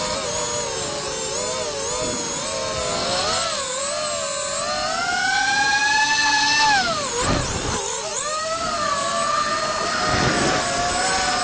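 FPV freestyle quadcopter's brushless motors and propellers whining, the pitch rising and falling with the throttle. There is a long climb to a peak about two-thirds of the way in, then a sharp drop as the throttle is chopped, and the whine picks up again.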